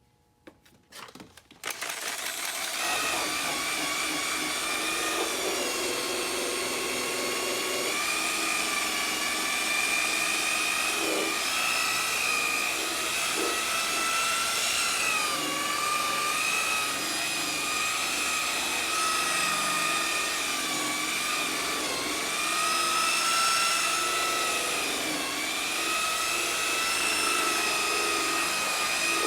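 Handheld power tool spinning a buffing pad over a plastic headlight lens, starting up about two seconds in after a few clicks. It runs with a steady whine whose pitch dips briefly several times as the pad is pressed harder.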